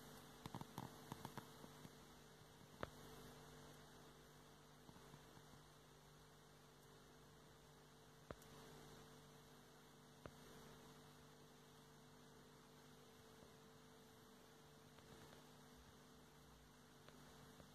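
Near silence: a faint steady hum, with a few faint clicks, the clearest about three, eight and ten seconds in.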